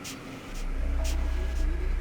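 Background electronic music with a steady beat of crisp high ticks; a deep bass comes in about half a second in.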